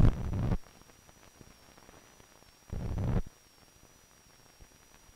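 Optical soundtrack noise from blank film leader: a loud burst of low buzz and crackle right at the start and another about three seconds in, each about half a second long, over faint hiss with a thin steady high whine.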